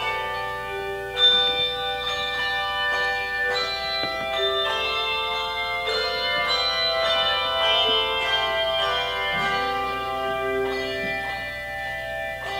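Handbells ringing a slow melody, each struck note ringing on and overlapping the next, with one sharply louder strike about a second in.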